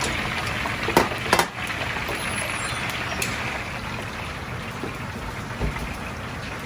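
Food sizzling in hot oil in a wok over a running gas burner. Two sharp metal clanks come about one and one and a half seconds in.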